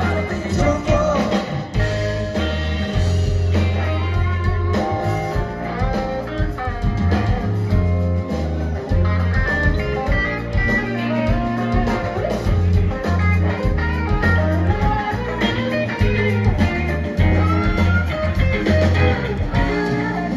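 Live blues-rock band playing: electric guitars over an electric bass line and a drum kit.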